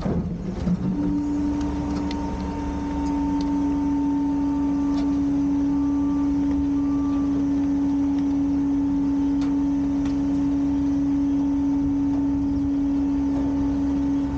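Garbage truck's hydraulic pump whining at one steady pitch under load, with the engine rumbling beneath. Three faint short beeps about a second apart come near the middle.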